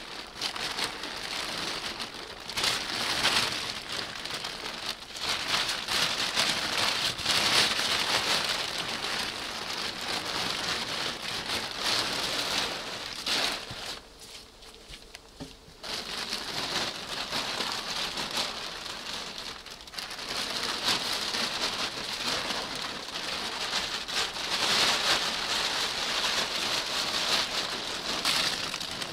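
Wet plastic tarp rustling and crinkling as it is pulled and gathered up by hand, loud in uneven surges, with a short lull about halfway through.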